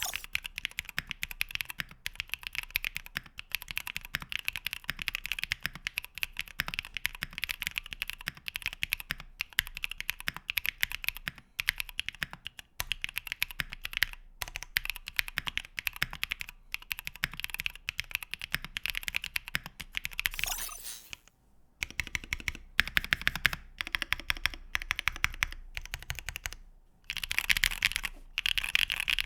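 Custom mechanical keyboard with Pang Hu Shizuka switches, an aluminium plate and KEY KOBO keycaps being typed on quickly in a steady stream of key clicks, with a short break about three-quarters of the way through.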